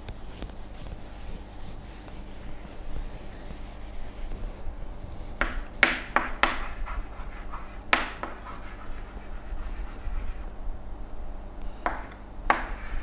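Faint scratching and rubbing: a few short strokes about halfway through and again near the end, over a steady low hum.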